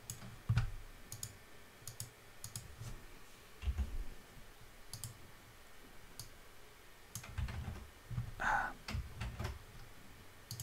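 Computer mouse clicks and keyboard keystrokes, quiet and irregularly spaced, with a few soft low thumps and a brief hissy rustle about eight seconds in.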